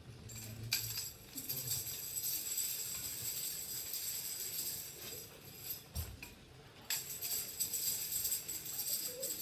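Metal jingles shaken in a steady high shimmer, like a tambourine's. They break off for about a second and a half past the middle, with a low thump in the gap, then start again sharply.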